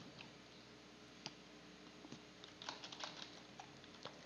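Faint typing on a computer keyboard: a few scattered keystrokes, with a quicker run of them about three seconds in.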